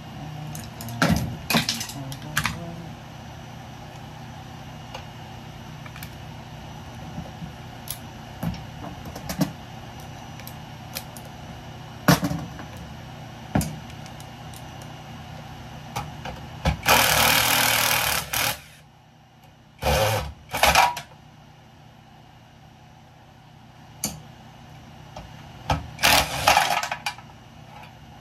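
Electrical scrap being handled and taken apart: scattered knocks and clanks, with a rasping noise lasting a second and a half about two-thirds of the way through and a few shorter rasps after it. A steady low hum underneath stops partway through.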